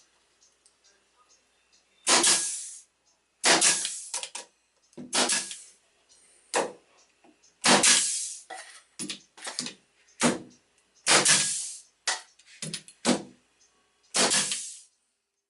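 About a dozen irregular sharp bangs, each trailing off briefly, from baseboard trim being nailed up.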